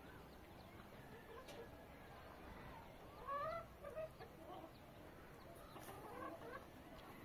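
Short clucking bird calls, a cluster about three seconds in and a few more near six seconds, over faint background noise.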